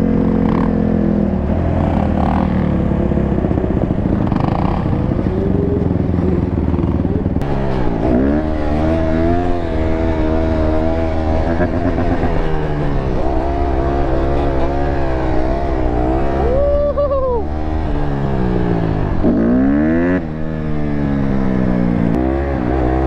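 Honda dirt bike's single-cylinder four-stroke engine being ridden. It runs fairly evenly at first, then from about a third of the way in revs up and falls back again and again as the rider works the throttle.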